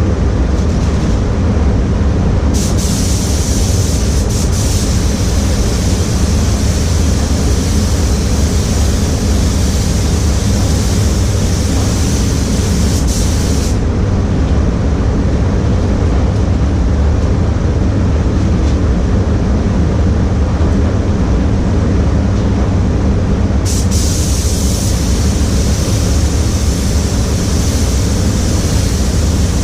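Steady low rumble of spray-booth air handling, with an air spray gun hissing in two long passes as paint is sprayed onto a car panel: one from about two and a half seconds in to about fourteen seconds, the other from about twenty-four seconds on.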